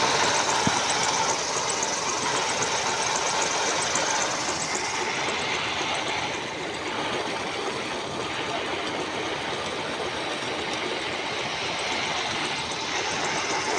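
Electric-motor-driven water pump running steadily, pumping pond water out through a pipe into the next pond.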